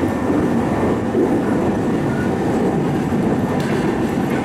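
Steady running noise of a commuter train heard from inside the car: the rumble of wheels on rails with some clickety-clack. The train runs through the tunnel and comes out into the open near the end.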